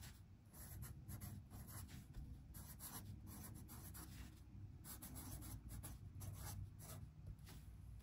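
Felt-tip pen writing a line of handwriting on sketchbook paper: a run of short, faint, irregular pen strokes.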